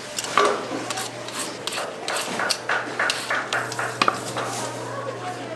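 A utensil stirring and scraping in a metal pot, in a quick irregular run of scrapes and clinks.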